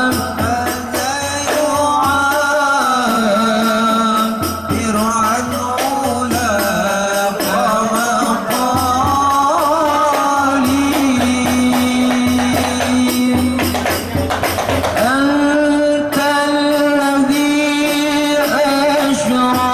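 Arabic devotional song (sholawat) music: a wavering, held melody over tambourine and hand-drum percussion.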